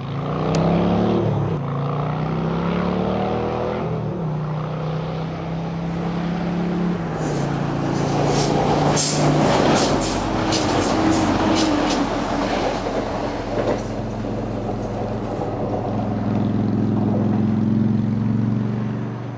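Class 175 Coradia diesel multiple unit passing: a steady diesel engine drone that shifts in pitch, with a run of sharp wheel clicks over the track as the cars go by in the middle. The engine drone grows again near the end as a unit approaches.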